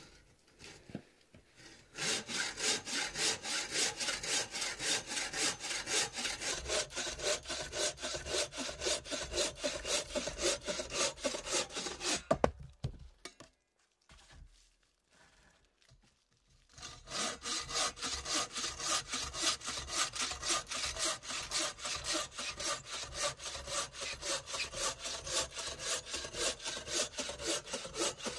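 Bow saw cutting through a birch log in fast, even back-and-forth strokes, in two long bouts with a pause of a few seconds between them. A single sharp knock comes just before the pause.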